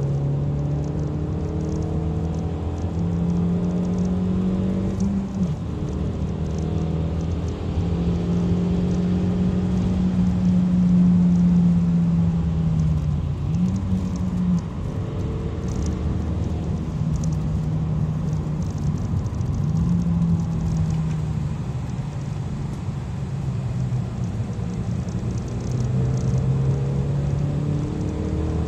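Kia cee'd GT's turbocharged four-cylinder engine heard from inside the cabin at speed, its note climbing and then dropping several times with throttle and gear changes, over steady tyre and road noise.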